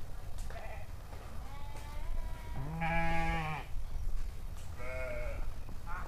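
Sheep bleating in a pen: several calls, the loudest about halfway through and another near the end, with fainter ones earlier.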